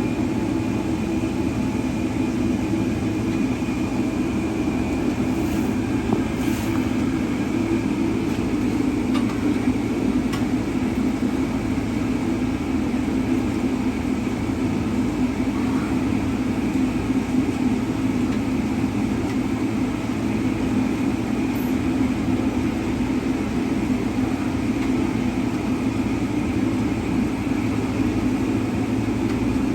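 A car driving, with steady road and engine noise.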